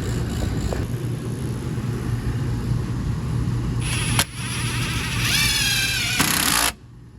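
Refrigeration vacuum pump running with a steady hum. About four seconds in there is a click, then a high hiss and a wavering whistle, which cut off suddenly near the end.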